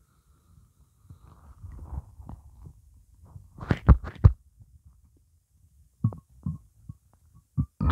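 Empty, hungry stomach gurgling, with only water inside: a low rumble, then a quick cluster of loud gurgling pops about four seconds in, and a few short gurgles near the end.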